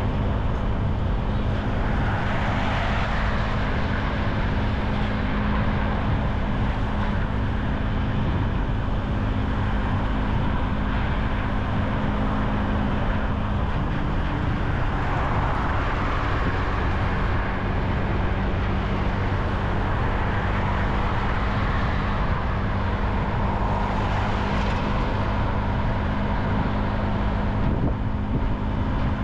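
Motorcycle engine running steadily while riding, under a continuous wash of road and traffic noise. The engine note shifts slightly in pitch about halfway through.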